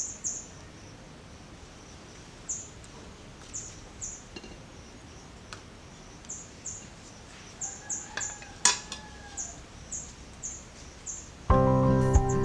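Small bird chirping: short, high chirps in irregular runs over a steady background hiss, with a single sharp click a little past the middle. Music starts suddenly near the end and is the loudest sound.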